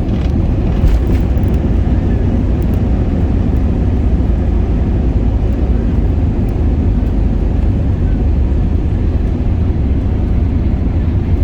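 Steady low rumble of airliner cabin noise aboard an Airbus A321ceo, engines and airflow heard from a passenger seat.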